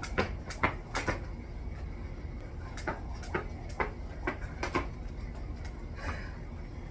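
Jumping rope: a sharp slap of rope and feet on the floor with each jump, about two a second. Three jumps, a pause of nearly two seconds, then five more before the jumping stops. A heavy breath near the end.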